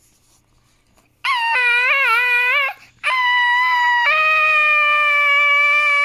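A child's voice reading out the book's "Aaaaaaaaaggghhh!!!" as a long, high wailing scream: a wavering cry starts about a second in, breaks off briefly, then a second cry is held steady. It is a play-acted scream, not real distress.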